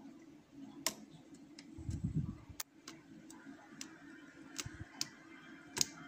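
Steel lock pick working the pins of a VRV10 euro cylinder lock under tension: sharp, irregular metallic clicks a second or so apart, with a dull low thump about two seconds in.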